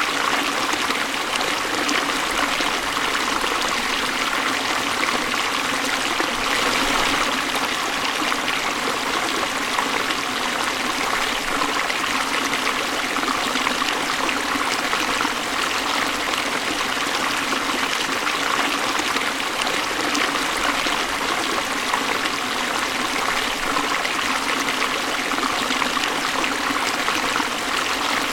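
Waterfall: falling water making a steady, unbroken rush.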